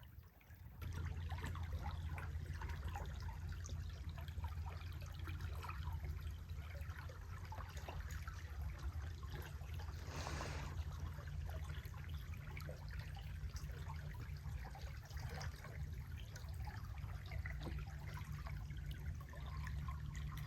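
Creek water trickling and lapping, with scattered small drips and one brief splash about ten seconds in, over a steady low rumble.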